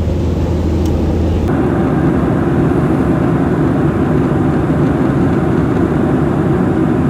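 Steady engine and airflow noise inside an airliner cabin in flight. About a second and a half in, the sound changes abruptly from a low hum to a broader, slightly louder rush.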